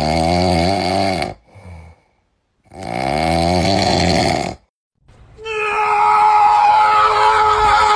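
Two long snores, each about two seconds, with a wavering pitch. About five seconds in, a different sustained sound starts: steady tones with falling glides over them.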